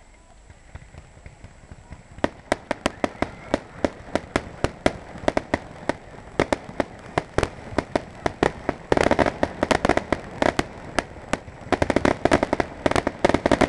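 Aerial fireworks going off. From about two seconds in comes an irregular string of sharp bangs and pops, thickening into dense crackling around the middle and again near the end.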